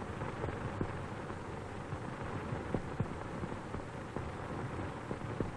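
Surface noise of an old optical film soundtrack: a steady hiss with scattered crackles and clicks, and a faint steady hum tone.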